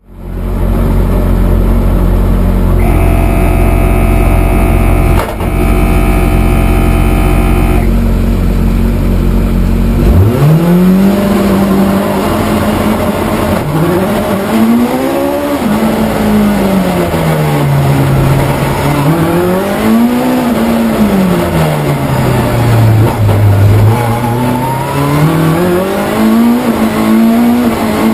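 A Ford Escort race car's 2.5 litre Millington Diamond four-cylinder engine, heard from the cockpit. For about ten seconds it runs at a steady idle, with a steady high tone over it for several seconds; then the revs rise sharply as the car pulls away, and the engine note sweeps up and down several times as it accelerates through the gears.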